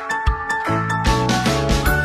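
Background music with a steady beat and bright held notes.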